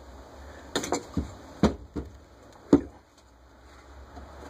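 Several sharp knocks and clicks of a Rochester Quadrajet carburetor's metal body and a hand tool being handled and turned over. They start about a second in, with the loudest a little before three seconds.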